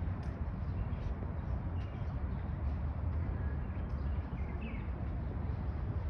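Outdoor park ambience: a steady low rumble with a few faint short bird chirps, about two seconds in and again a little after four seconds.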